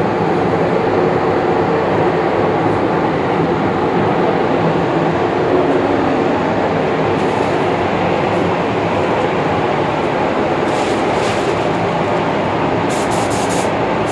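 Spray-paint booth's ventilation fans running steadily, with a few short hisses of compressed air from the paint spray gun, the last just before the end.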